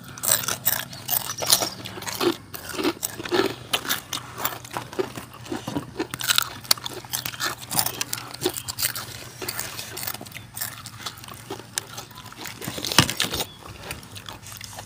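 Close-up eating sounds: many irregular, sharp crunches and chewing as people bite into crisp crispy pork rinds and green papaya salad.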